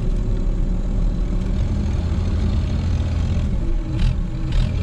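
Tractor engine running steadily, heard from inside the cab, with two short knocks near the end.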